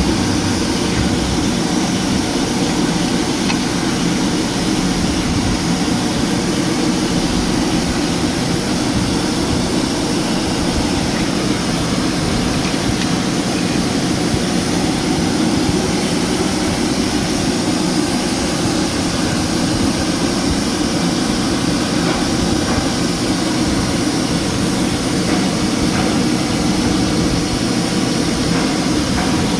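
Ford Ranger 2.2 L engine running steadily, recorded for its knocking noise.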